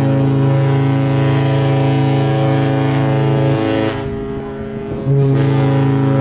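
Cruise ship horns blowing long, deep, steady blasts with several notes sounding together. The blast breaks off about three and a half seconds in, leaving about a second of wind and rustle, and a deep blast starts again about five seconds in.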